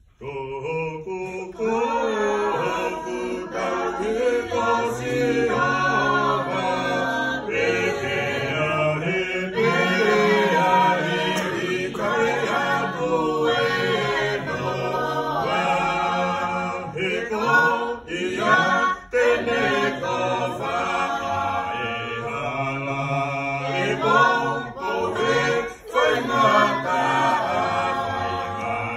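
A group of voices singing together in harmony without instruments. The singing starts suddenly at the beginning.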